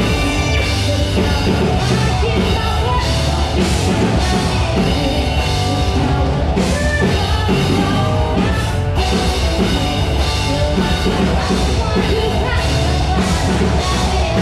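Live rock band playing through a PA system: drum kit with cymbals, electric guitars and keyboard, with a woman singing into a microphone. A full-band run-through at a sound check.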